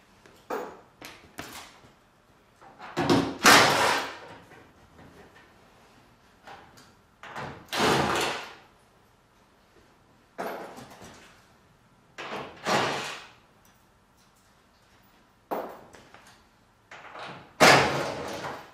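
Irregular knocks, clunks and scraping handling noises, a dozen or so, from hands-on work on a convertible top's rear window curtain and its fittings inside the car. The loudest come about three and a half seconds in and near the end.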